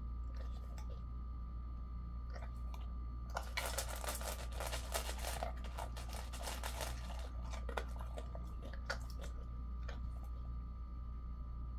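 Jindo-mix dog eating dry kibble from a stainless steel bowl: a dense run of crunching from about three to seven seconds in, then scattered single crunches and clicks. A steady low hum and a thin steady tone run underneath.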